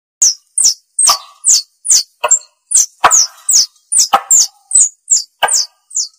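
Forest squirrel (tupai) lure call: a rapid run of sharp, high chirps, about two and a half a second, each sliding quickly down in pitch, some with a harsher, lower chattering part underneath.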